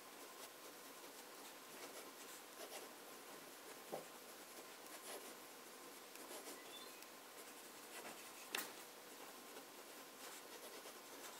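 Fountain pen with a medium steel nib writing on paper: faint scratching of the strokes with light ticks, the sharpest about eight and a half seconds in.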